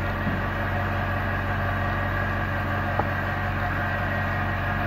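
Steady electric machine hum with several held tones, with one light click about three seconds in.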